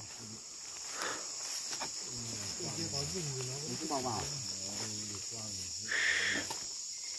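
Steady high-pitched insect chorus, with faint distant voices under it.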